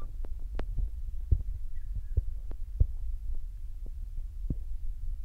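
Steady low rumble of outdoor background noise, with irregular faint clicks and ticks scattered through and a couple of faint short chirps about two seconds in.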